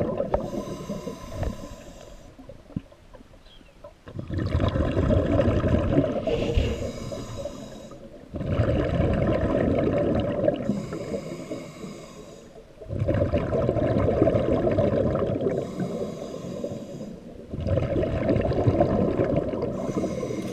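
Scuba diver breathing through a regulator underwater: a hissing inhale, then a bubbling exhale, in a steady cycle of about one breath every four seconds.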